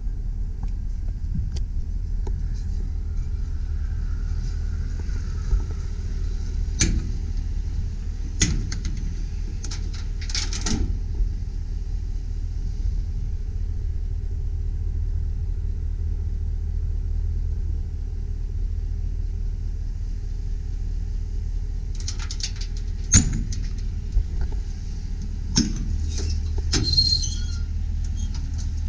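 2001 Chevrolet Silverado 2500 pickup's engine idling steadily, with several sharp knocks and clicks, a few around the middle of the first half and a cluster in the last six seconds.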